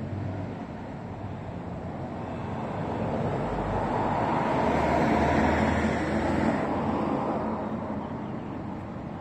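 A road vehicle passing by: a broad traffic noise that builds to its loudest about five seconds in, then fades away.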